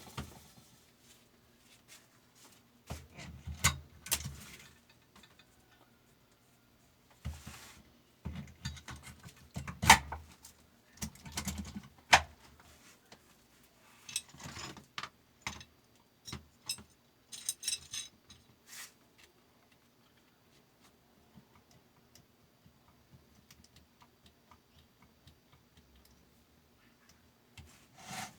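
Small metal parts of a fabric cutting machine's knife sharpener clicking, clinking and knocking as they are handled and fitted, in irregular bursts with short quiet gaps between.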